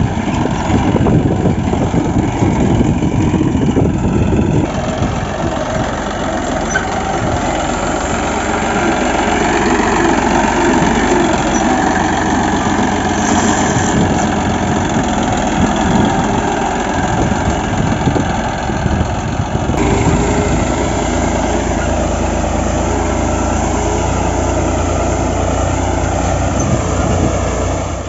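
Massey Ferguson 9500 tractor's diesel engine running steadily under load while pulling a cultivator through dry field soil. The sound shifts abruptly twice, about five and twenty seconds in.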